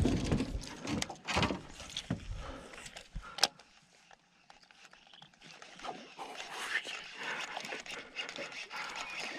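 Bass-fishing tackle being handled in an aluminum boat: a run of knocks and clicks, with a sharp click about three and a half seconds in, then a short quiet, then a steady patter of small ticks and rustles while the baitcasting rod works the line.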